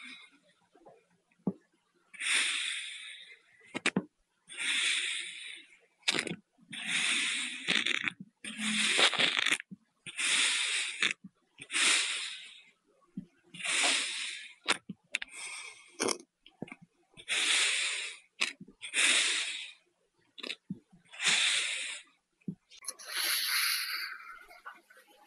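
Kinetic sand being cut with a knife: about a dozen slicing strokes, each a hissing scrape lasting about a second, one every one to two seconds, with short clicks between some of them.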